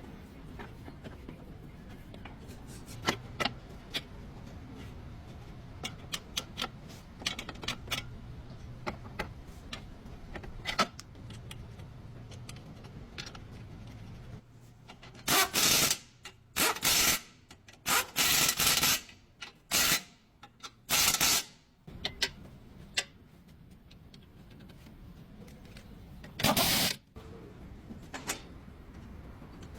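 Workshop tool sounds: scattered light clicks and taps in the first half, then a run of short, loud bursts of noise past the middle, with one more near the end.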